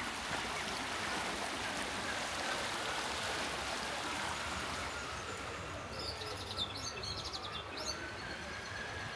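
Steady rush of running water, with a few quick high bird chirps about six to eight seconds in.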